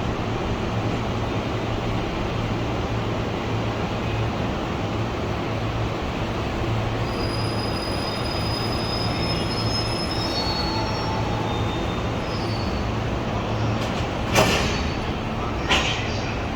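Freight train during shunting and coupling work: a steady rumble of the diesel shunting locomotive and wagons, with a thin high wheel squeal from about seven to twelve seconds in. Near the end come two sharp clanks about a second apart, the loudest sounds.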